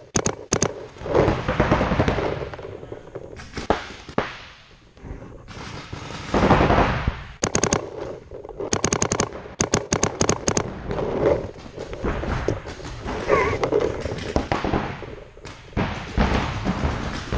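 Paintball markers firing in rapid strings of shots, about ten a second, several strings in a row, including a Dye Luxe marker. Between the strings there is louder rustling and scuffing noise.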